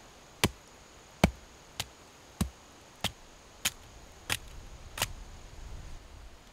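Wood being split by repeated strikes: eight sharp knocks, about two-thirds of a second apart.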